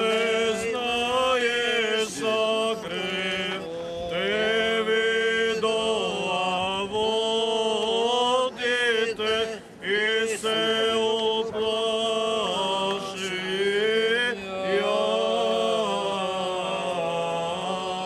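Male voices of Orthodox clergy chanting a liturgical hymn of the blessing of the waters, long held and gliding notes over a low note sustained steadily beneath the melody.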